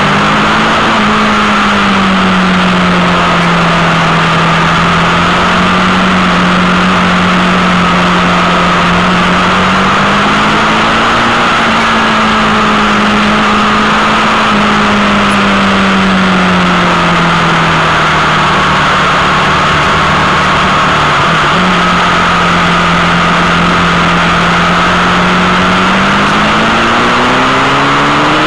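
Sport motorcycle engine running at road speed under heavy wind rush; its pitch sinks and rises gently with the throttle, then climbs steadily near the end as the bike accelerates.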